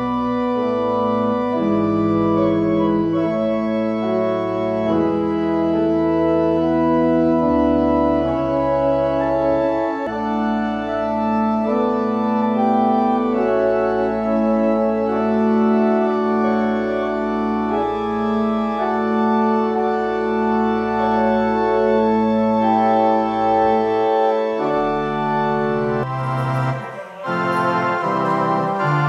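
Organ playing slow, sustained chords over long held bass notes. Near the end the music breaks off briefly, then continues with shorter, more detached notes.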